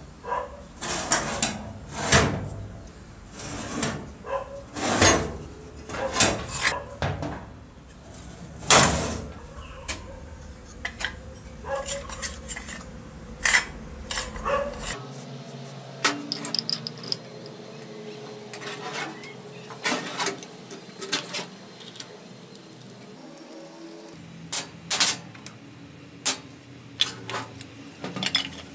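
Irregular metal clanks, knocks and rattles as an old, rusty circular saw is handled and turned over, its loose guard and base plate knocking against the housing and the hard surface beneath. The knocks come thick and loud in the first several seconds, then sparser.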